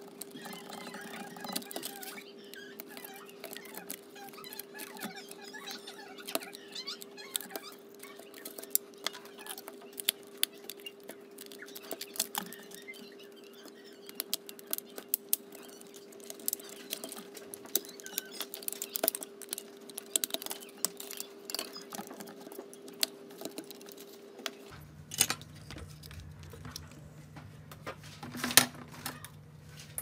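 Small clicks, taps and scrapes of a plastic hair dryer housing being handled and pried apart by hand with a small screwdriver, over a faint steady hum.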